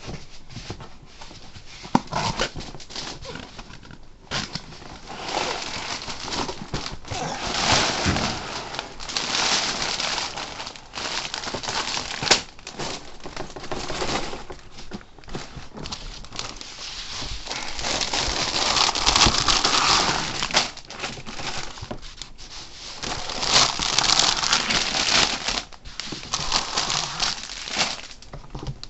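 A large LEGO set being unboxed by hand: cardboard and plastic bags of bricks rustling and crinkling as they are pulled out, with scattered knocks and bursts of louder rustling.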